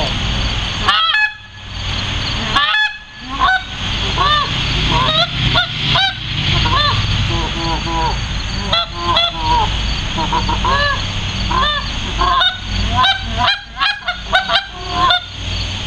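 A hand-blown goose call, high-pitched, run through a fast series of clucks and honks with a couple of brief pauses in the first three seconds.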